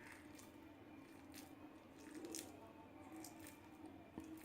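Near silence with faint soft squishes and a few light clicks: wet hands pressing sticky jaggery-coated boondi into a laddu.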